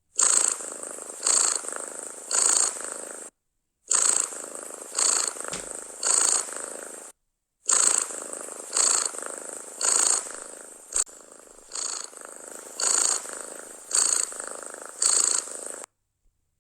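Domestic cat purring loudly, close up. Each breath swells and then fades, about one a second, and the purr cuts out to dead silence briefly three times: about three and a half seconds in, about seven seconds in, and near the end.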